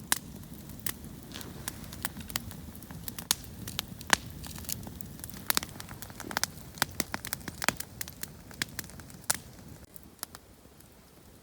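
Wood campfire crackling, with sharp irregular pops over a low, steady rush of burning logs. The popping thins out and the level drops about ten seconds in.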